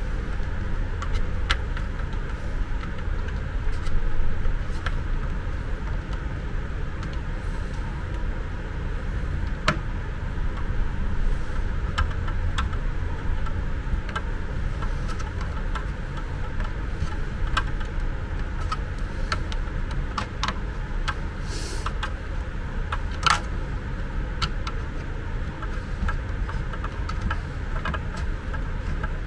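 A screwdriver working screws in a plastic aspirator housing: scattered light clicks and small knocks of metal on plastic, over a steady low rumble.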